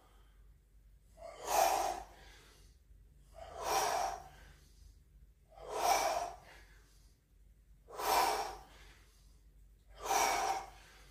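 A man breathing hard through a kettlebell squat set: five forceful exhalations, about two seconds apart, one per repetition, with quiet between them.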